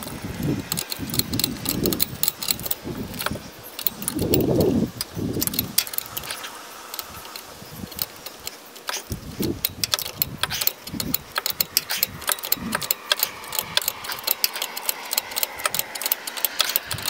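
Metal tools and hardware clinking and clattering in irregular sharp clicks as a shock absorber is fitted to its mounts. A few dull low thuds come in the first six seconds, the loudest about four to five seconds in.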